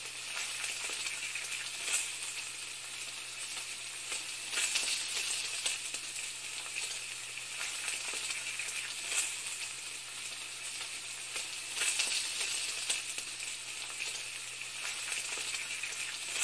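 A steady crackling, sizzling hiss with scattered small pops, over a faint low hum.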